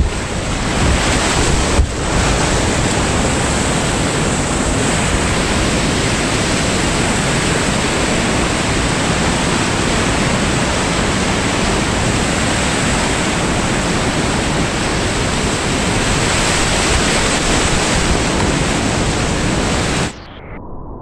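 Whitewater rapid heard from inside the run: a loud, steady rush of churning, falling water close to the kayak. About a second before the end it drops suddenly to a much quieter, muffled sound.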